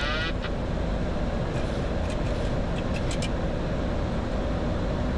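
Steady cockpit noise of a Boeing 737-800 on approach: airflow and engine noise. A pulsing warning tone, the autopilot disconnect alert, cuts off just after the start. A few faint clicks follow around the middle.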